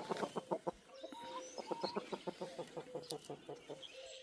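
A flock of chickens clucking in quick short notes, several a second, with a longer steady call held under them through the second half.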